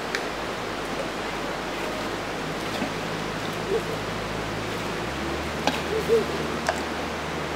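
Creek water running steadily over rocks, with a few sharp clicks of stones and a thrown rock splashing into the water about six seconds in.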